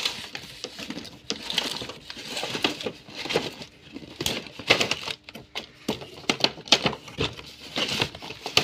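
A cardboard toy-car box with a clear plastic window being pulled open by hand: irregular crinkling and rustling of the plastic, with scrapes and small knocks of the cardboard flap.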